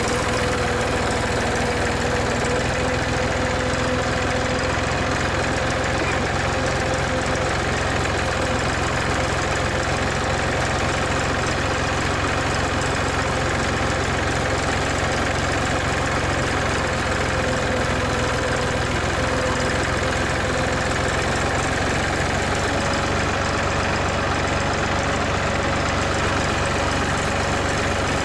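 Massey Ferguson 231 tractor's diesel engine running steadily under the driver's seat as the tractor drives along, with a steady whine over the low rumble.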